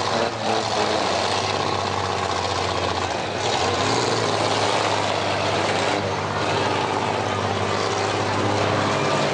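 Engines of demolition-derby mini-trucks running hard: a loud, steady engine drone under a thick noisy hiss, its pitch shifting up slightly about three seconds in.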